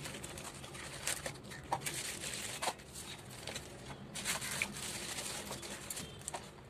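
Clear plastic packaging crinkling and rustling in the hands, with a few light clicks and taps as small plastic tubs and a glue tube are handled.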